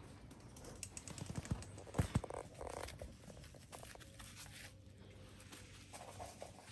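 Labrador mother and puppy play-wrestling on artificial turf: scuffling and rustling, with a run of sharp knocks about two seconds in.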